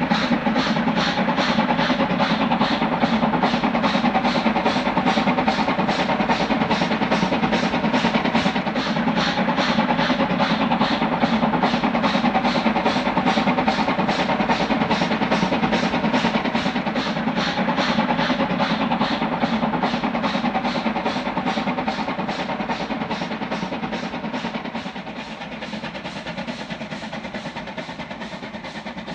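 Class 555.0 steam locomotive working a passenger train: rapid, even exhaust beats over steady running noise, fading in the last few seconds as the train draws away.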